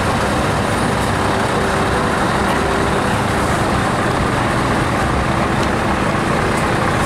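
Diesel engine of a bonneted truck tractor unit running steadily at low revs as the truck drives slowly past.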